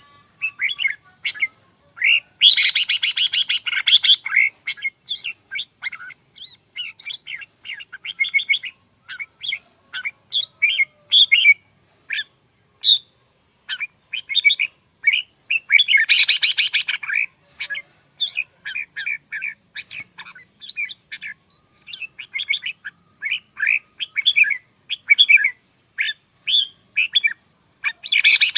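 Red-whiskered bulbul singing: a continuous run of short, quick chirping notes, with three louder, denser outbursts about two seconds in, around the middle, and near the end.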